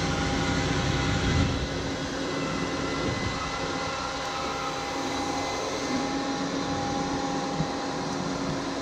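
Fire truck's aerial ladder in motion, its hydraulics and the truck's engine running steadily while the 109-foot ladder is raised, extended and rotated at the same time. A steady mechanical hum with a few held tones, its low rumble easing about a second and a half in.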